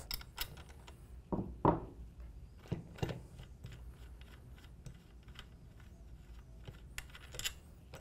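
Faint metallic clicks and clinks of a wrench on a kids' bike rear axle nut, the 15 mm nut being worked off the threads by hand and the training wheel bracket sliding off the axle, with a few sharper knocks in the first few seconds.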